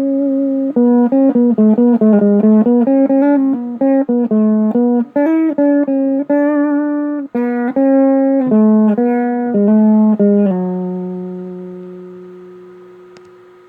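A single-line melody picked note by note on a guitar-like plucked string instrument. It ends on one long held note that fades out slowly over the last few seconds.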